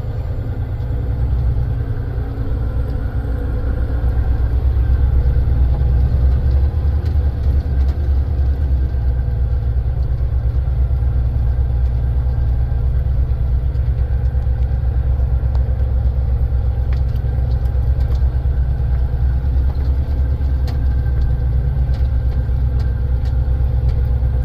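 Diesel tractor-trailer engine running steadily under load, pulling a gondola trailer full of heavy stone, with a deep, even drone.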